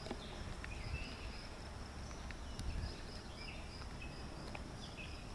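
Quiet outdoor background: a low rumble with faint, short high chirps of birds and a thin insect trill.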